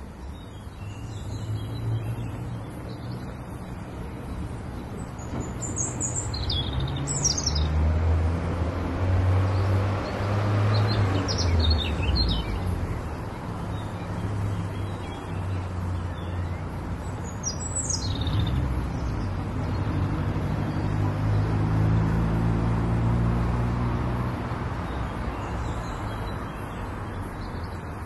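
Road traffic noise, cars and trucks passing with engine rumble that swells and fades. Short bird chirps come through three times.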